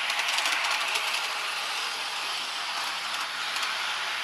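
Garden-scale model train rolling along its track: a steady rolling noise of the wheels on the rails, with a few faint clicks in the first second.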